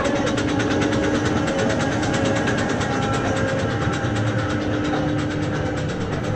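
Suspended roller coaster train climbing its chain lift: rapid, even clicking over a steady mechanical hum.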